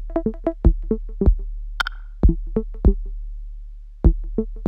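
Electronic background music: short, plucked synthesizer notes in a drum-machine rhythm over a steady low bass.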